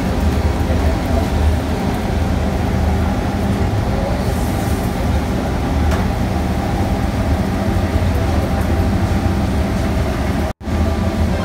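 Steady hum and rumble of commercial kitchen equipment, cutting out briefly near the end.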